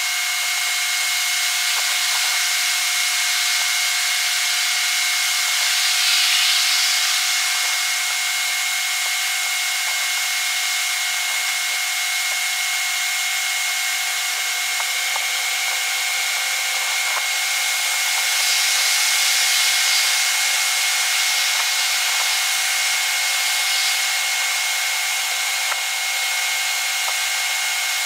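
A steady, fairly loud hiss with two faint constant tones running through it, swelling gently about six seconds in and again around twenty seconds.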